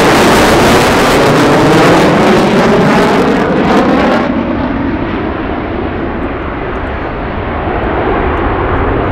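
Jet engines of an EA-18G Growler and an F-35C flying in formation with an F4U Corsair, passing overhead. Loud jet noise with a sweeping, phasing whoosh as they go by, turning duller and quieter about four seconds in as the formation draws away.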